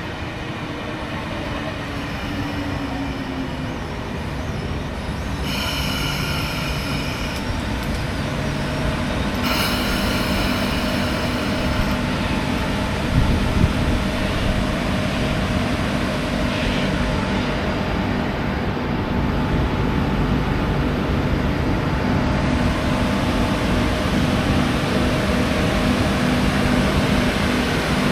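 Sydney Trains electric suburban train running at the station, a steady rumble that slowly grows louder. Two short high-pitched tones sound over it, about six and ten seconds in.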